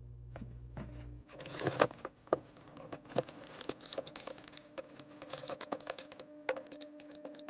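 Quick small clicks and rattles of rotary-tool bits and accessories being handled and pulled from their plastic cases, with a short rustle about a second and a half in.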